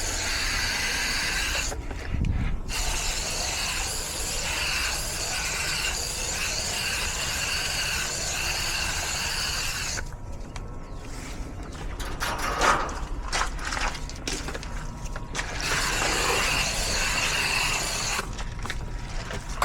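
Sprayer hissing as coil cleaner is sprayed onto an air-conditioner condenser coil, in long spells broken a few times by short pauses.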